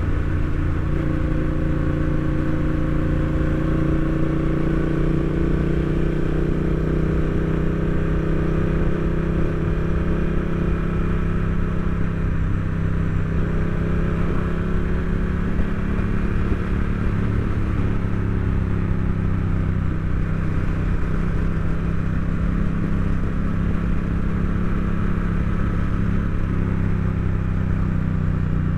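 Honda Rebel 1100 DCT's parallel-twin engine running under way on the road. The note rises gently over the first several seconds, then holds steady at cruising speed.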